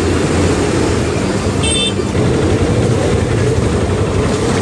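Floodwater of a swollen river rushing in a loud, steady roar. A brief high horn toot sounds about a second and a half in.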